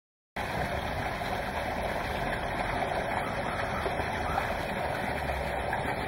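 Silence, then about a third of a second in a steady outdoor rushing noise with a low rumble cuts in and runs on unchanged.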